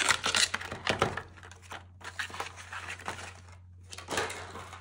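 Clear plastic blister packaging crinkling and crackling as it is handled, in three bursts with short pauses between them.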